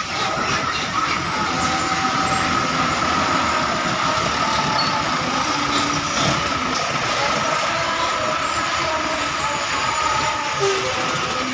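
Large buses running, a continuous heavy engine noise with a steady high whine held throughout.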